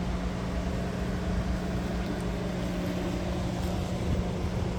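Steady low mechanical hum with a constant droning pitch over a low rumble.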